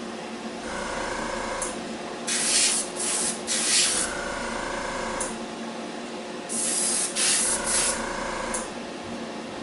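Airbrush spraying primer in several short hissing bursts over a steady background hum.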